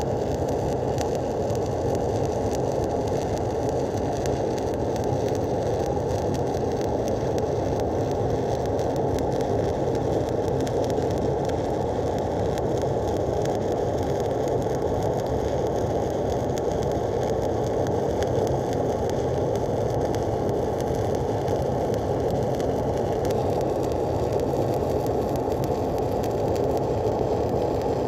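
Stick-welding (shielded metal arc) electrode arc sizzling steadily and evenly while an overhead stringer bead is run on the cap pass of a groove-weld test plate.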